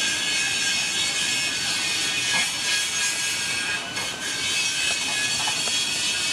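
Steady outdoor background noise: an even hiss that holds level, with a few faint steady high tones.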